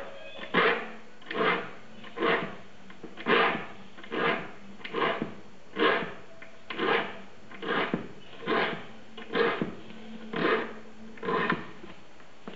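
A file rasping across the teeth of a Japanese saw as it is sharpened, in steady strokes a little under a second apart, about a dozen of them, stopping near the end.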